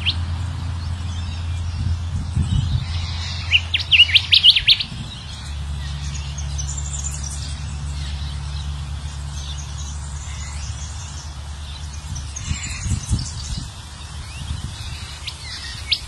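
Golden whistler (kancilan emas) calling: a loud burst of quick, high chirps about four seconds in, then scattered high calls, over a steady low hum.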